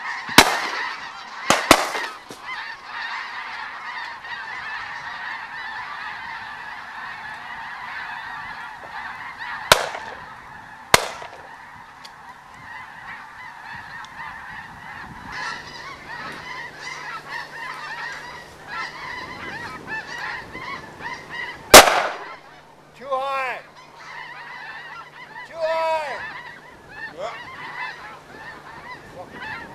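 A flock of geese honking overhead in a steady clamour, while shotguns fire: three shots in the first two seconds, two more about ten and eleven seconds in, and the loudest single shot a little past twenty seconds. Near the end single geese call out more clearly.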